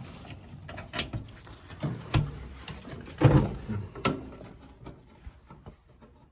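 A few separate knocks and rattles of sheet metal as a gas furnace's lower access panel is handled and fitted back into the cabinet, the loudest knock about three seconds in.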